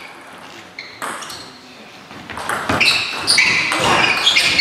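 Sports shoes squeaking on a sports hall floor: a run of short, high squeaks in the second half, over faint background voices.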